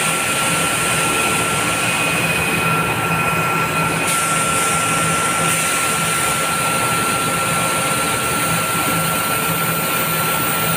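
Thyssenkrupp KB 1750 batch sugar centrifugal running up to its spin speed of about 1100 rpm: steady loud machine noise with a continuous high whine, and a second, higher whine that stops about four seconds in as the basket nears full speed.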